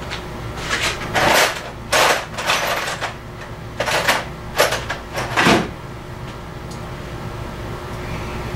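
Off-camera rummaging for washers in a shop: a run of clattering knocks and scrapes, like drawers and parts being handled, in about five bursts, dying away near the two-thirds mark to a steady low hum.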